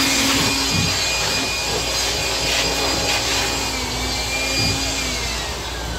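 Air blower blowing dust out of the electrical control cabinet of a paper die-cutting machine: a steady, loud rush of air with a faint whine through it.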